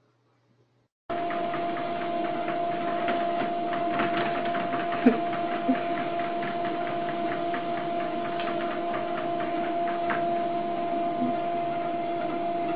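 A machine running with a steady whirring hum: two held tones over a fine crackle, starting abruptly about a second in after near silence.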